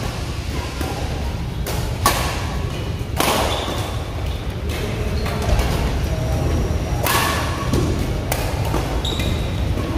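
Badminton rackets hitting the shuttlecock during a rally: about five sharp smacks at irregular spacing, each ringing briefly in a large hall, with thuds of footsteps on the court.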